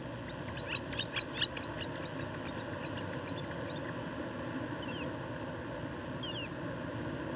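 Small birds chirping: a quick run of short high chirps in the first two seconds, then two single slurred notes later, over a steady outdoor hiss.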